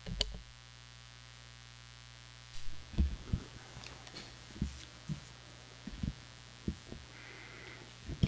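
Steady electrical hum from the sound system, with irregular thumps and knocks as a gooseneck microphone on a lectern is handled and adjusted. The loudest knocks come about three seconds in and just before the end.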